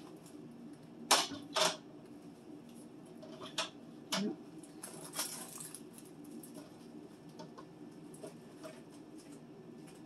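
Food containers and packages being set down and shifted on plastic refrigerator shelves and a plastic Lazy Susan turntable: a series of sharp knocks and clatters, the loudest two close together about a second in, more a few seconds later, then fainter taps. A low steady hum runs underneath.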